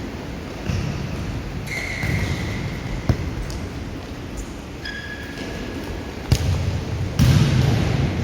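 Futsal in play on an indoor court: a ball struck and thudding, with two sharp knocks about three and six seconds in, and two short high squeaks in between.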